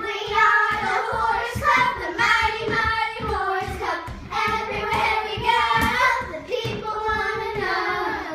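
Several young girls singing a song together, with many short thumps beneath the singing.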